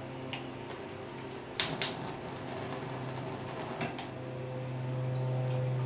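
Two sharp clicks from the cooker's controls as the hob is switched on, then a low steady hum that grows louder from about four seconds in.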